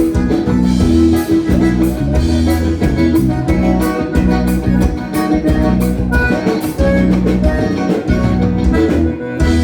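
Live gaucho dance band playing an instrumental passage between sung verses: sustained chords over a steady drum beat.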